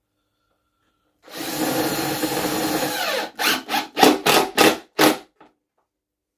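Makita cordless driver sinking screws into plywood. About a second in it runs for roughly two seconds and winds down, then comes a string of about six short trigger bursts as the screw is driven home.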